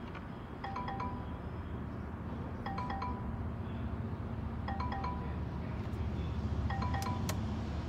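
Jaguar XF's dashboard warning chime, a quick three-note chime repeating about every two seconds, sounding because the ignition is switched on with the engine not running. A steady low hum lies under it, and a couple of sharp clicks come near the end.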